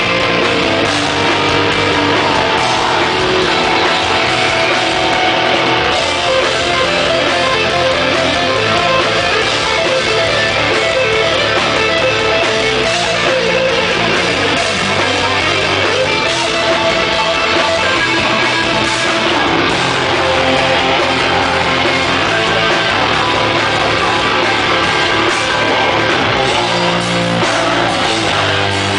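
Live rock band playing loud, with electric guitars at the front of a dense, unbroken wall of sound.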